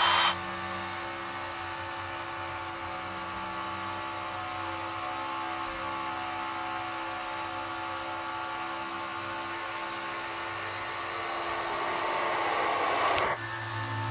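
Race car engines as a dubbed sound effect: a steady, even engine drone whose pitch climbs and gets louder near the end, as if revving up, then cuts off suddenly about 13 seconds in.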